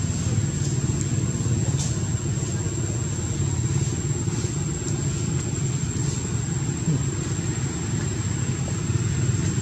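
Steady low rumble with a faint, constant high-pitched whine above it.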